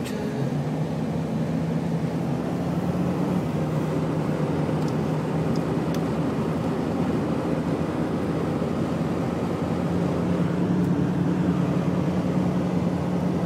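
Car engine running with road noise while driving, the engine note stepping up in pitch about half a second in and again about ten seconds in.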